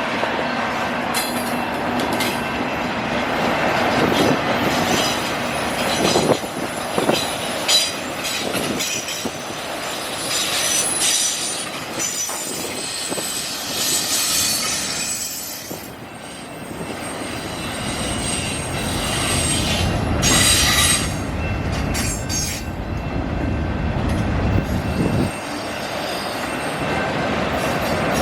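Canadian National autorack freight train rolling past: steel wheels clacking over the rail joints, with high-pitched wheel squeal coming and going.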